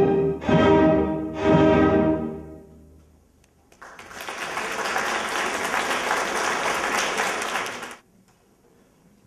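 Symphony orchestra ending a piece on two loud final chords that ring out and fade. About a second later the audience applauds, and the applause stops abruptly near the end.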